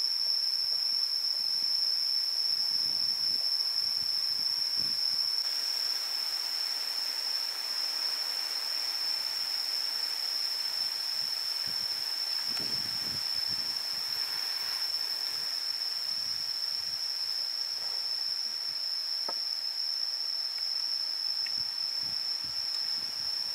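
Forest insects droning in a steady, high-pitched, unbroken single tone.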